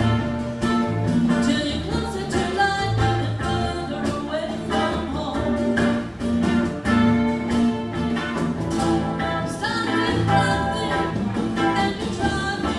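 A band playing a song: electric and acoustic guitars over bass, with percussion keeping a steady beat.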